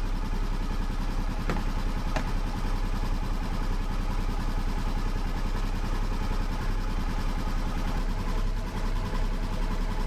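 Polaris Ranger UTV engine idling steadily, left running after a fresh oil change to check for drips. Two light clicks sound over it about one and a half and two seconds in.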